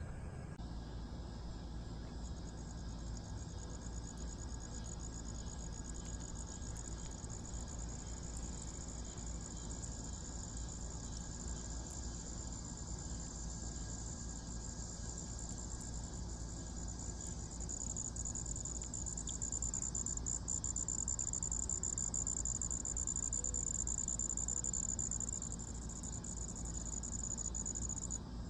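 Insects trilling in one continuous high-pitched drone that grows louder in the second half and cuts off suddenly near the end, over a steady low rumble.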